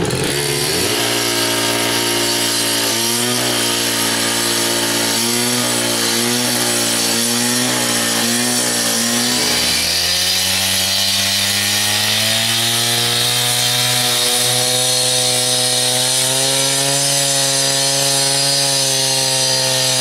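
Two-stroke gas-powered cut-off saw wet-cutting control joints into a fresh concrete slab, the engine running hard under load. Its pitch wavers up and down, drops about halfway through, then slowly climbs again.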